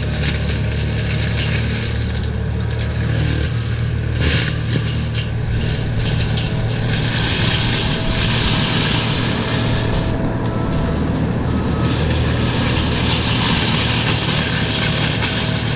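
Forestry mulching machine running steadily: a constant engine drone under a dense grinding, rushing noise that eases off briefly a few times as the mulcher head chews through brush.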